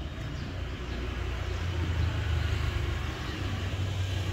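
Low, steady rumble of a motor vehicle engine, growing louder about one and a half seconds in.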